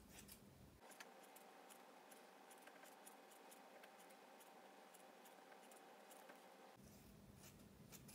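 Faint, irregular snips of scissors cutting V shapes through two layers of organza, with light rustling of the fabric.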